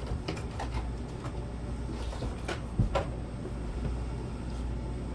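Rice and beef broth heating toward a boil in a cast iron pan: a soft bubbling hiss with scattered small pops and clicks, over a steady low hum.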